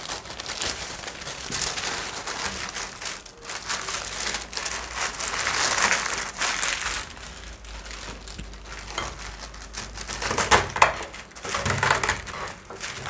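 Hardened caramel and cashew brittle being broken and crushed by hand into coarse pieces, a steady crunching and crackling with a few sharper knocks near the end.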